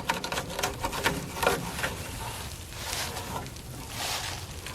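Irregular clicking and scraping from hand cleanup work, with a quick run of clicks in the first second or so and a few scraping, rustling strokes later.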